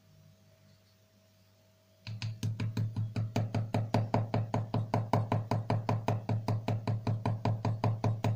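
Small watchmaker's hammer tapping a silver ring on a mini steel anvil: rapid, even taps, about five or six a second, starting about two seconds in, as the crushed, sharp edge of the ring is hammered back into shape.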